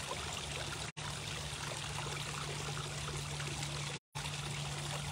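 Steady rushing noise like running water, over a low steady hum; the sound cuts out completely twice, briefly.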